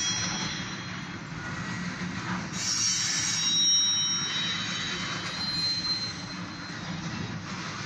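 Freight train of covered grain hopper cars rolling past, a steady rumble of wheels on rail, with high-pitched wheel squeals about three seconds in and again around six seconds.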